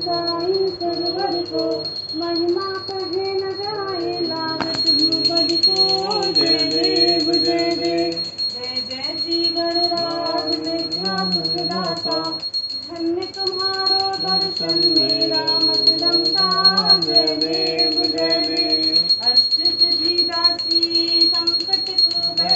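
Devotional aarti singing to Lord Ganesh, accompanied by a puja hand bell that rings continuously, rung faster from about five seconds in.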